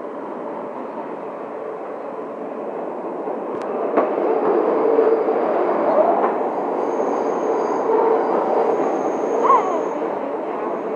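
New York City subway train running, heard from inside the car: a steady rumble of wheels and motors that grows louder about four seconds in as the train picks up speed into the tunnel. A couple of sharp knocks come just before the rise, and faint thin high whines come and go near the end.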